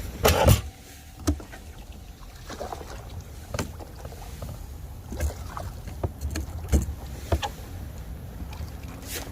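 Wind rumbling on the microphone, with scattered knocks and clicks; the loudest, a double thump, comes just after the start.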